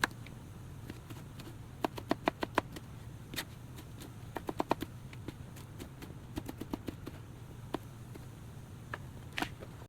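Knife tapping on a cutting board while chopping vegetables, in irregular light strokes with short quick runs of taps.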